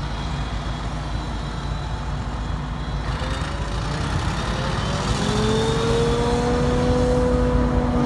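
Claas self-propelled forage harvester running as it works into standing silage corn: a steady engine rumble, with a whine that rises about three seconds in and holds steady and louder from about five seconds in as the machine takes in the crop.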